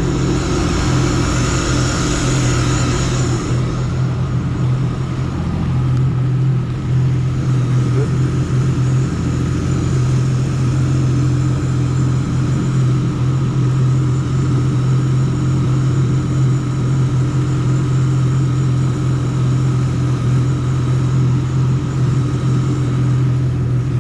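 An engine running steadily at an even speed, a constant low hum with no revving or change in pitch.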